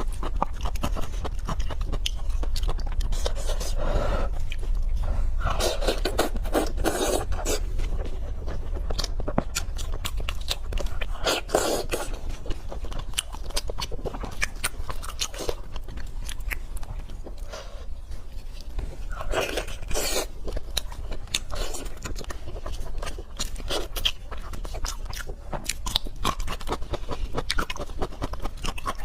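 Close-miked chewing of spicy pork leg curry and rice: a steady run of small wet mouth clicks and smacks, with several louder bursts of chewing.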